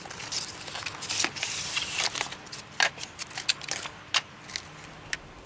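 Packaging being taken off a model train: rustling and scraping of a cardboard box and polystyrene tray, with many sharp clicks and knocks, busiest about a second or two in.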